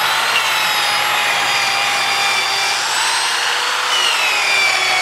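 Handheld power sanding tool (a 'restorer' drum sander) running steadily against the live edge of a wood slab, working around a knot. Its motor whine wavers and dips in pitch near the end.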